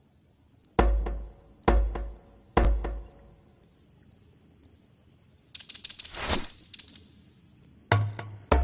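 Steady high chirring of crickets, broken early on by three deep, heavy thumps about a second apart. A brief dense rattle follows in the middle, and low booming thuds begin near the end.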